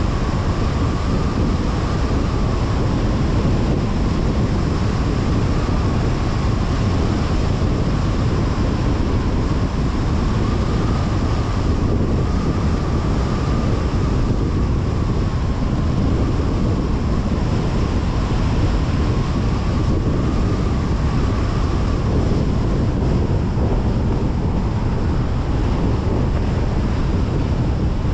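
Car driving at a steady pace on a highway: constant tyre and wind noise with a deep low rumble.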